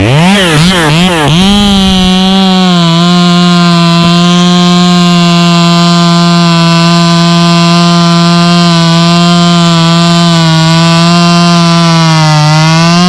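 Two-stroke chainsaw blipped up and down three times, then held at full throttle cutting through a queen palm trunk, its pitch sagging a little under load. Near the end the pitch dips and then rises as the saw comes through the cut.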